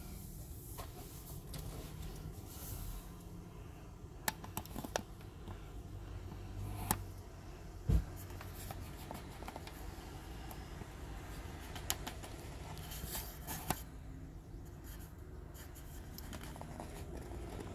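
Handling noise of a phone camera being repositioned inside a car: scattered light clicks and knocks, the loudest a thump about eight seconds in, over a low steady hum.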